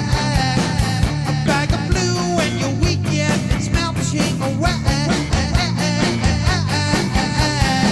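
Background rock music with a steady drum beat and a singing voice.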